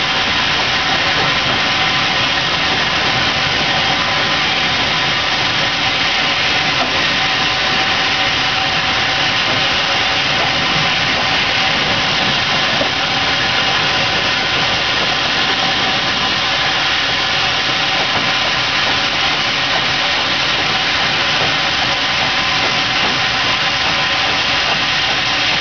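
1898 Blanc-Misseron steam locomotive heard from its footplate while under way: a loud, steady hiss and running noise with no breaks.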